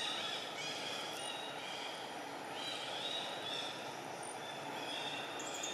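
Steady outdoor forest ambience: a constant hiss with insects buzzing in high-pitched bands that rise and fade every second or so.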